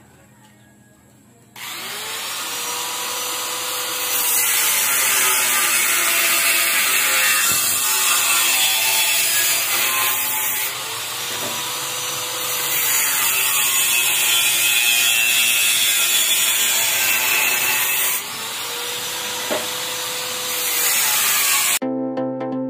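Angle grinder cutting a square steel tube. The disc hiss starts about a second and a half in and is loudest through the middle, while the motor whine rises and sags three times as the disc bites and eases off.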